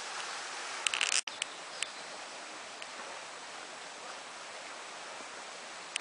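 Steady rushing of a mountain valley stream, with a few sharp clicks and a momentary gap in the sound about a second in.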